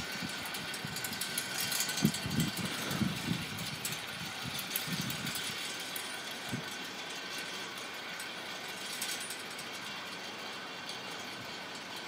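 Wind blowing hard, with uneven low rumbles of gusts on the microphone over a steady rushing hiss. The gusting eases about halfway through.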